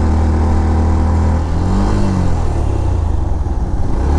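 Motorcycle engine running under steady throttle, heard from the rider's seat. About halfway through, the engine note briefly rises and falls, then turns uneven for a moment before settling back to a steady note near the end.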